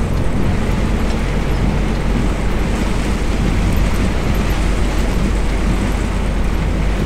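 Inside the cab of a MAN TGX semi-truck rolling slowly on a wet road: a steady low diesel engine drone with an even hiss of tyres on water.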